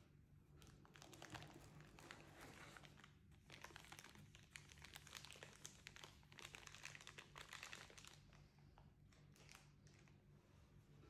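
Soft crinkling of a thin plastic bag as gloved hands handle the bagged headphone cable, fading out about eight seconds in.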